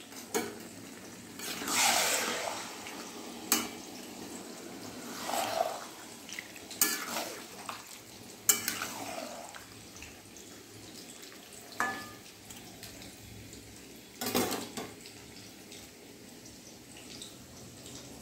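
A spoon or spatula stirring chicken pieces in thick sauce in a metal pan, with a few longer scraping swishes and about six sharp clinks of the utensil against the pan.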